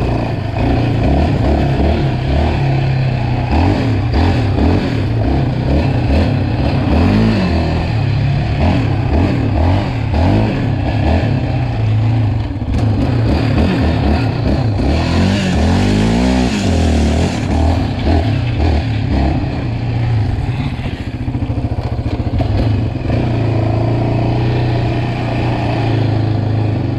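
Yamaha Raptor 700R sport quad's single-cylinder engine, fitted with an aftermarket Monster exhaust, running under throttle while riding, its pitch rising and falling as the throttle opens and closes, with sharper revs about seven and sixteen seconds in. A hiss joins the engine for a couple of seconds around the fifteen-second mark.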